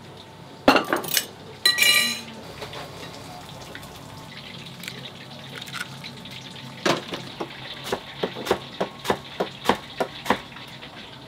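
Restaurant kitchen dishes and utensils clattering: two loud clatters with ringing clinks in the first two seconds. Later comes a run of about a dozen evenly spaced knocks, about three a second.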